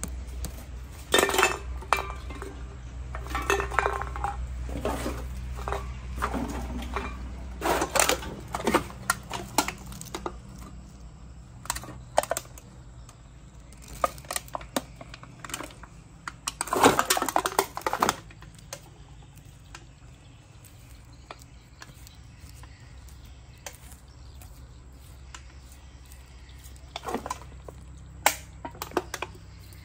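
Plastic baskets being handled and set down on a brick wall, giving irregular knocks and rattles in clusters, the loudest about a second in, around eight seconds in and around seventeen seconds in. A low steady rumble runs underneath.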